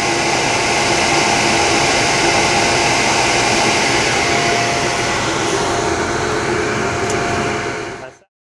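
Quest PowerHeat CHH-300 heater running steadily, a loud even machine noise with a steady hum through it, cutting off abruptly near the end.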